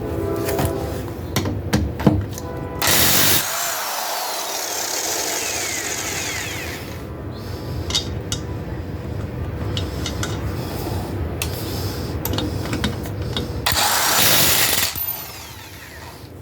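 Chicago Electric 1/2-inch electric impact wrench run in two short bursts, about three seconds in and again near the end, with clicks and handling noise between.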